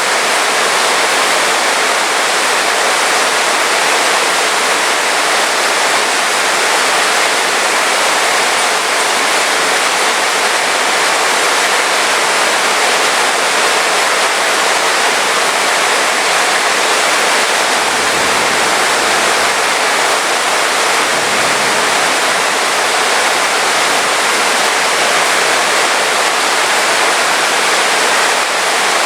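Heavy rain falling steadily in a dense, even hiss. A faint low rumble swells briefly about two-thirds of the way through.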